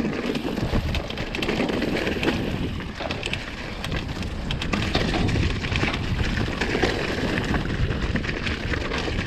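Mountain bike riding down a damp, muddy dirt singletrack: tyres rumbling over the ground, with frequent clicks and rattles from the bike, and wind buffeting the microphone.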